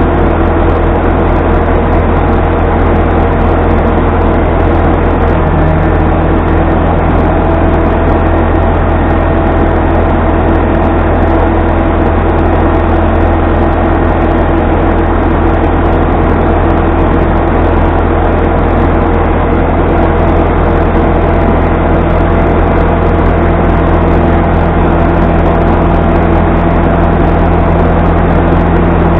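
Machinery running steadily, a loud continuous drone with a deep hum.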